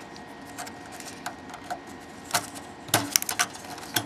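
Sharp plastic clicks and small rattles of wire connectors being tugged out of a laser printer's circuit board, with a quick run of several clicks about three seconds in.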